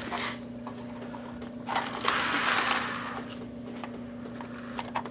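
A Lionel model trolley's electric motor whirs briefly along the track about two seconds in, over a steady low electrical hum.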